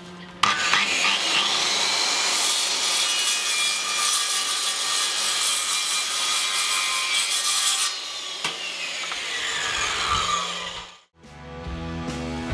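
Circular saw with a carbide-tipped wood blade cutting a shallow 3 mm slot along a welded seam in aluminium door framing, a loud, steady, hissing screech. About eight seconds in the cut ends and the blade winds down with a falling whine. Background music comes in near the end.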